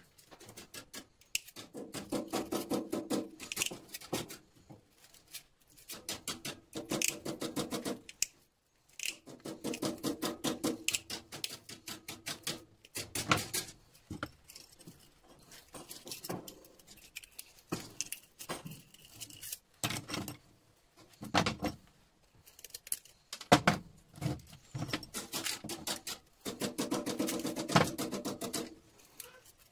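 Sped-up sound of hand tools on scrap metal: side cutters snipping and small metal parts clicking, in quick rattling bursts a second or two long with short pauses between.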